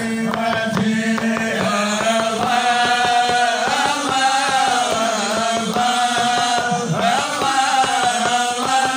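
Men chanting Sufi madih, devotional praise song, amplified through microphones: a sung melody that rises and falls over a steady rhythmic beat.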